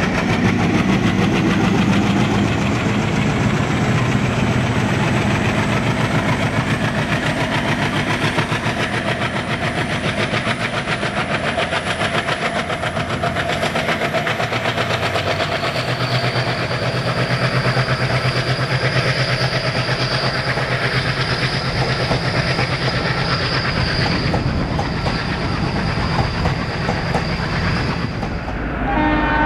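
Multiple ALCO diesel locomotives working hard as they pull a passenger train away, followed by the coaches rolling past with continuous wheel clatter over the rails. A steady high whine joins about halfway through.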